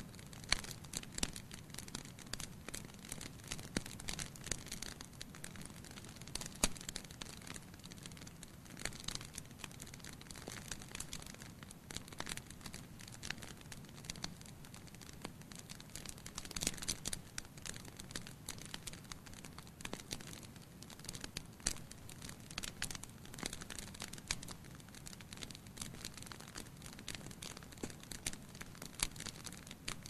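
Wood fire burning in a fireplace: the logs crackle and pop irregularly, several times a second, over a low steady rush of flame.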